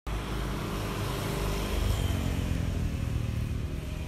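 A motor vehicle's engine running with a low rumble that swells to its loudest about two seconds in.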